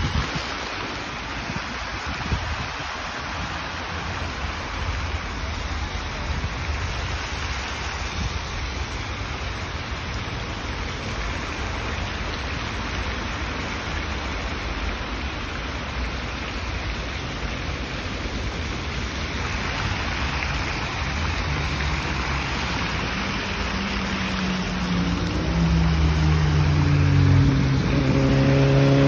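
Fountain jets spraying and water splashing into a large basin: a steady hiss of falling water over a low rumble. Near the end a louder low sound with several held tones comes in.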